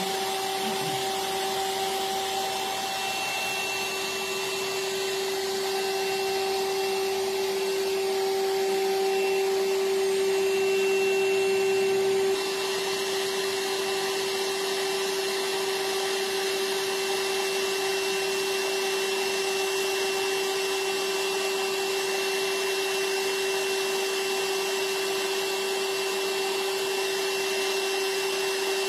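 Steady machine whir with a constant hum and a faint high whine from the Nd:YAG laser treatment equipment running, stepping a little quieter about twelve seconds in.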